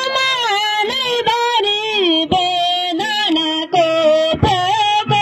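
Nepali Teej folk song: a woman singing a bending melody over regular hand-drum beats.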